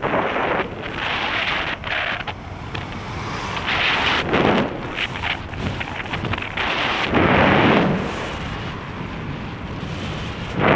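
Wind buffeting the microphone of a camera on a moving bicycle, mixed with road and traffic noise. It swells twice, a few seconds in and again about two-thirds of the way through.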